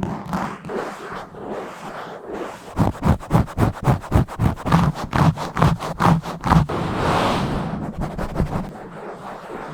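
Fast, rough scratching and rubbing directly on a bare microphone's grille. Rapid strokes come about five a second from about three seconds in, then give way to a smoother, steady rub near the end.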